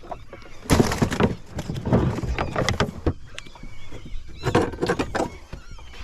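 Irregular knocks and clatter from fish and gear being handled on a fishing boat, in three loud clusters. Seabirds call faintly and on and off.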